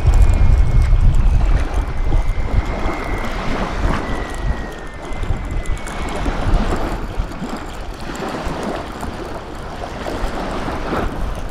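Wind buffeting the microphone over small waves lapping at the shoreline, the gusts strongest in the first couple of seconds and easing after. A faint high whine sinks slightly in pitch and fades out about six seconds in.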